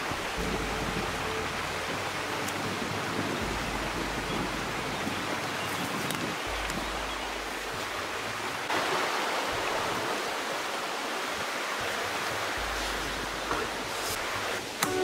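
Small rocky forest river rushing steadily over stones, growing slightly louder about nine seconds in.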